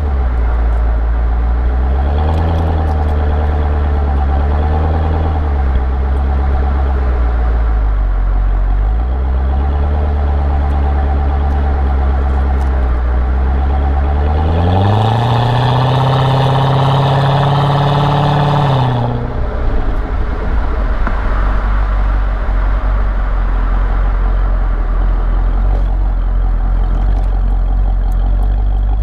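Chevrolet C6 Corvette V8 exhaust, a deep low rumble whose pitch dips and rises gently a few times. About halfway through it revs up for roughly four seconds, then falls back to a lumpy low rumble.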